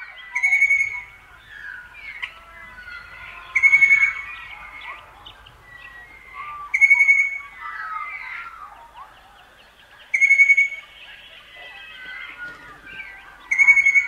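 Eastern rosella calling: a loud, clear whistled note repeated five times, about every three seconds, over a busy chorus of other birds' chirps and whistles.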